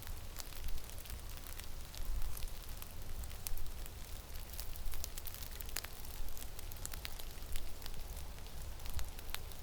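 Blizzard wind buffeting the microphone with a low rumble and a steady hiss, with scattered sharp ticks throughout.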